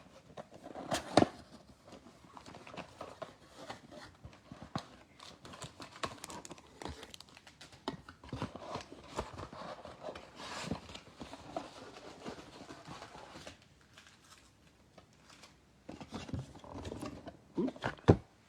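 Plastic wrap and card packs being torn open and crinkled, with scattered rustles and sharp clicks. A couple of louder clicks come about a second in and near the end.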